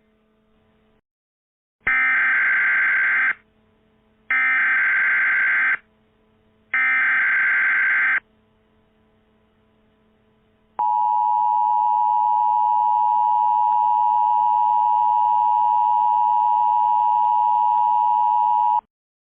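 Emergency Alert System header: three short bursts of screechy digital data tones, each about a second and a half long. Then comes the EAS attention signal, a steady two-tone beep held for about eight seconds that cuts off abruptly.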